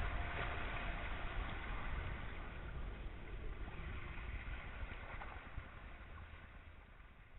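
Water rushing and splashing past the hull and float of a Cross 18 trimaran under way, picked up close to the waterline, fading gradually toward the end.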